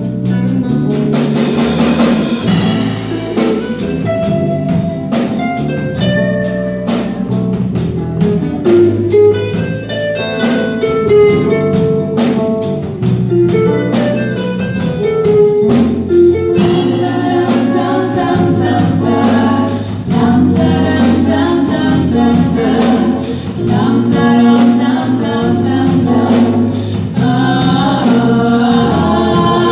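Live band music: drum kit, bass and guitars playing a steady beat, with women's voices singing in harmony. The sound fills out from about halfway through.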